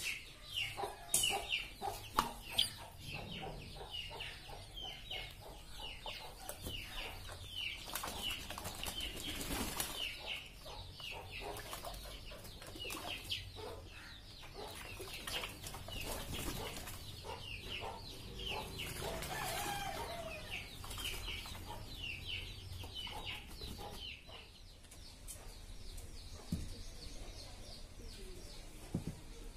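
Pigeons bathing in a tub of water, flapping their wings and splashing in scattered bursts. Throughout, birds keep up quick, high chirps that slide downward, several a second.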